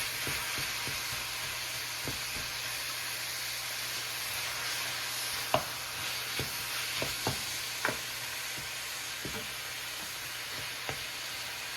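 Beef and onions sizzling in oil in a pot, with a steady frying hiss and a spoon now and then clicking against the pot as the meat is stirred.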